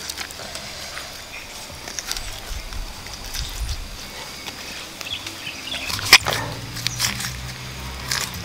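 Hands pulling apart grilled, chili-sauced quail: scattered small crackling and tearing sounds, with a sharper crack about six seconds in.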